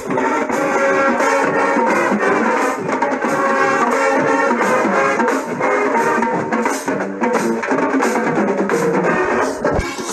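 High school marching band playing: brass carrying a melody over a steady drum beat.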